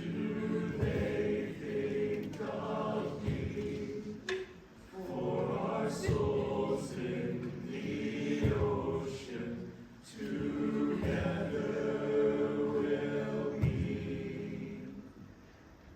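A group of voices singing a slow, mournful sea lament in harmony, in three long phrases that fade away near the end.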